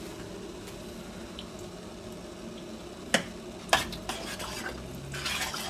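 A metal spoon stirs thick spinach sauce in a stainless steel pot. About three seconds in, the spoon gives two sharp clinks against the pot, followed by lighter scraping and ticks.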